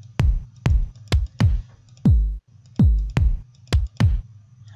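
FL Studio's stock FPC kick-drum samples auditioned one after another: about nine single electronic kick hits at uneven spacing, each a short punchy thump that drops quickly in pitch. One hit about two seconds in rings out longer than the rest.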